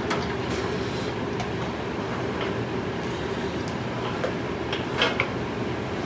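Eastwood bead roller turning as a bead is rolled into a sheet-metal panel: a steady rumble with scattered light clicks.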